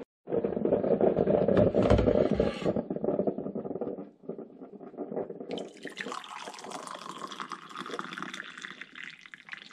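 Rain and wet outdoor noise, in separate stretches. A louder, fuller rush fills the first few seconds, and a lighter, higher hiss of drizzle runs from about halfway in.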